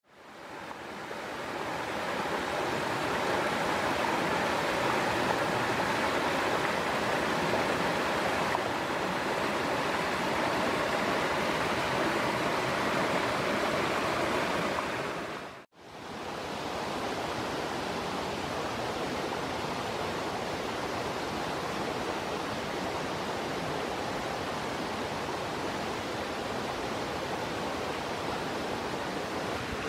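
Rushing water of a rocky stream running over stones: a steady rush that fades in at the start, cuts out for a moment about halfway through, then carries on a little quieter.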